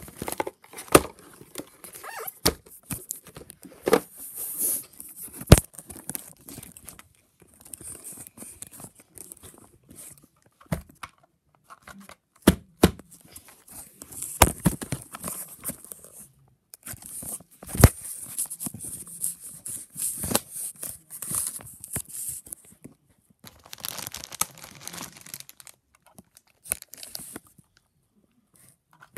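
Packaging being torn open and handled during an unboxing: irregular bursts of tearing and rustling, with sharp knocks scattered through and short pauses between.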